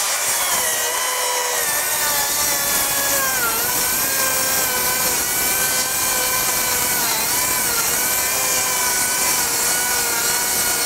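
Makita 40V XGT brushless rear-handle 7-1/4-inch circular saw cutting a long way through a 2x4 screwed to OSB: a steady motor whine over the rasp of the blade in the wood. The pitch dips slightly about a third and two-thirds of the way through as the saw bogs down a little under load, without slowing much.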